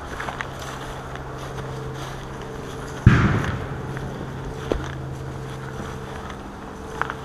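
Steady low engine drone, with footsteps on dry leaf litter and one loud thump about three seconds in.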